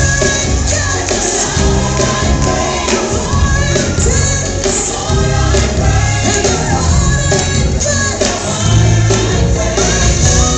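Recorded gospel song with a choir singing over a full band with heavy bass.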